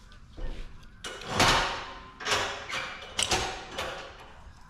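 A run of about six separate knocks and scrapes from objects being handled and set down, the loudest about one and a half seconds in.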